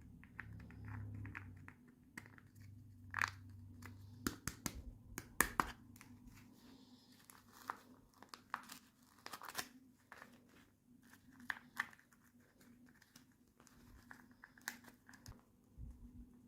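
Packaging being handled in an unboxing, crinkling and tearing in irregular crackles and clicks, over a faint steady hum.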